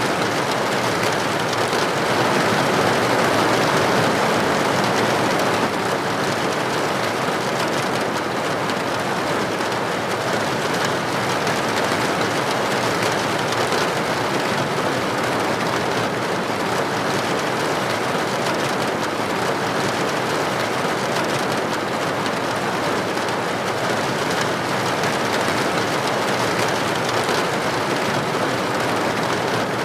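Steady rain falling, a dense even hiss without drips or rhythm, easing very slightly about six seconds in.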